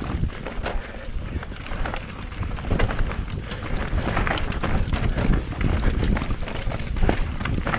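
A mountain bike rattling and clattering down a rough trail, with a constant run of irregular knocks over a low rumble from the tyres.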